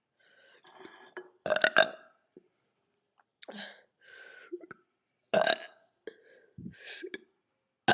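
A woman burping several times in a row, with short separate burps. The loudest come about a second and a half in and about five and a half seconds in.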